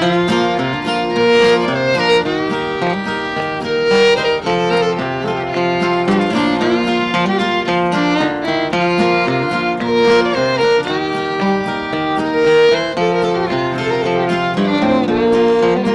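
Live acoustic bluegrass instrumental intro: a fiddle carrying the melody over guitar accompaniment.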